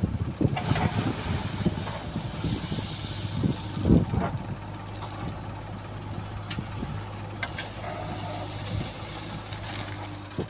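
JCB 3DX backhoe loader's diesel engine running steadily while the backhoe digs and loads stone chips, with several sharp knocks of bucket and stone, the loudest about four seconds in, and two stretches of hiss.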